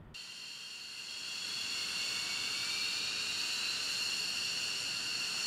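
F-15 fighter jet's turbofan engines whining with several high steady tones over a hiss. The sound grows louder over the first couple of seconds, and its pitch creeps slightly upward.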